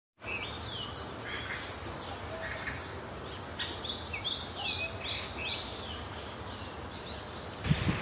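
Birds chirping and calling, short descending chirps with a quick run of them in the middle, over a steady outdoor hiss. A low rumble comes in just before the end.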